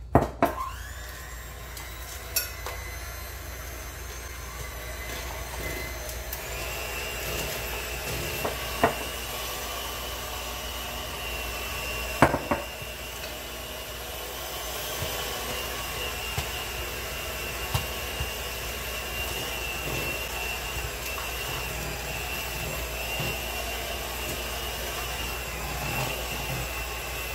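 Electric hand mixer running steadily, beating flour into thick peanut butter batter in a plastic bowl. A high whine joins in after a few seconds. A few sharp knocks stand out, the loudest at the start and about twelve seconds in.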